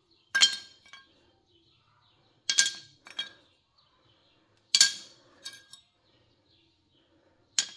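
Steel handbrake shoes, worn down, clinking against each other or a hard surface as they are handled and set down: about six separate sharp metallic knocks with a brief ring, three of them louder than the rest.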